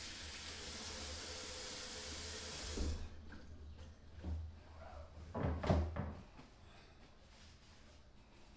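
Kitchen faucet running as hands are rinsed under it, shut off about three seconds in. After that come a few short knocks and rustles, the loudest just before the middle of what remains, as the hands are dried with a paper towel.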